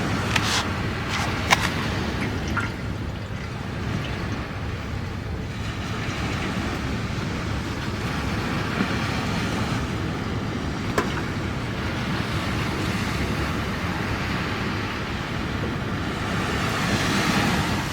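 Campfire burning: a steady rush of noise with a few sharp crackles and pops from the wood.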